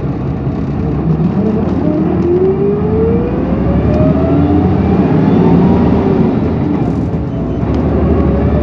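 Interior sound of an Isuzu Erga city bus pulling away and accelerating, heard from the back row: a steady engine rumble under a whine that climbs in pitch through the gear, then starts low again and rises a second time near the end. The bus is one its recorder calls an odd-noise vehicle.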